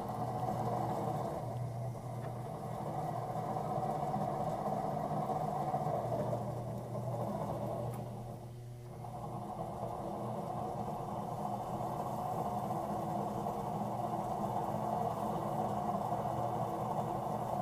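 Electric potter's wheel running at speed with a steady motor hum, and wet clay rubbing under the potter's hands as it is pressed down and in to center it. The rubbing dips briefly about eight and a half seconds in, then carries on.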